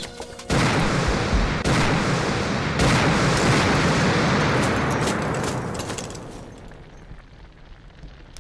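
A time bomb exploding in a canvas-covered army truck: a sudden blast about half a second in, two more sharp bursts over the next couple of seconds, then a long rumble that dies away over several seconds.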